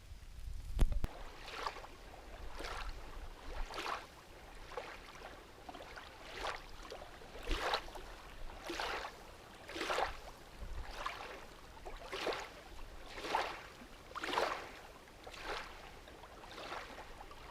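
Canoe paddle strokes in the water, an even swish about once a second.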